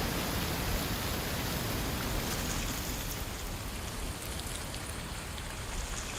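Strong wind blowing, a steady rushing hiss. Low buffeting on the microphone is strongest in the first few seconds and then eases a little.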